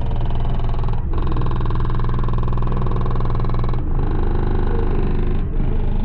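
Bass-heavy music played loud through a car audio system driven by a single Resilient Sound Platinum 15-inch subwoofer, with deep sustained bass notes dominating. The upper end drops out briefly about a second in, near four seconds and near the end.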